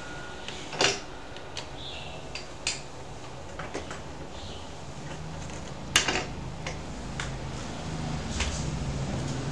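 Sparse light clicks and clinks of small parts and tools being handled on a work table, the sharpest about six seconds in. A low hum grows louder over the last few seconds.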